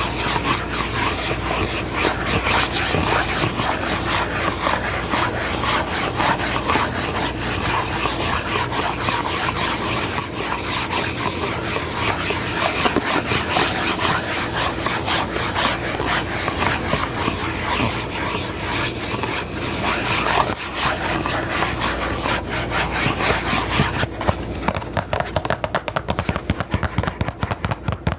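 Close-miked ASMR rubbing and scratching, a dense continuous scratchy noise. About 24 s in it turns into a fast run of crisp taps or clicks.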